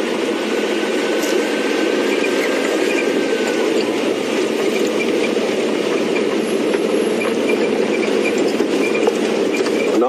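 Safari game-drive vehicle driving along a bush track: steady engine and road noise. A faint thin high tone sounds over it for the first few seconds.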